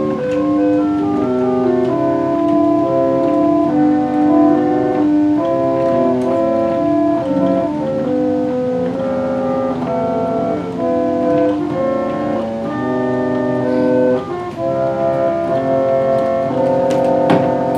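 Morrison and Corser melodeon, a foot-pumped reed organ, playing a tune in held chords with a melody above. A sharp click sounds once near the end.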